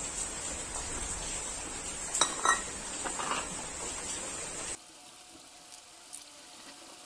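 Hand wet-sanding of a Yamaha RX100's aluminium engine side cover: abrasive paper rubbing and scraping on the wet metal, with a few sharp clinks as the cover is handled, about two and three seconds in.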